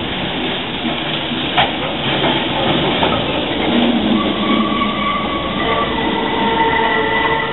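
De Lijn Hermelijn low-floor tram running through a tight curve, its wheels squealing on the rails in several steady high tones from about four seconds in, over the rumble of the running gear. A single sharp knock sounds about a second and a half in.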